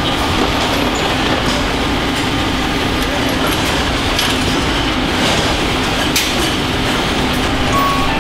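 Steady car-assembly-line factory noise: a constant machinery hum and rumble, with a few light clicks and knocks scattered through it.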